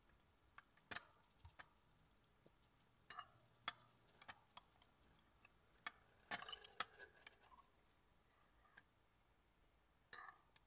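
Faint, irregular clinks and scrapes of a metal spoon against a glass jar as chia pudding is spooned out, with a short flurry of clicks a little past the middle.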